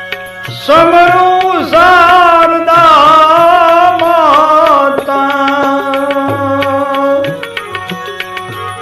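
Gujarati devotional bhajan music: tabla keeps the rhythm under a steady drone, and a loud, wavering melody line comes in about a second in, is held for several seconds and then drops back.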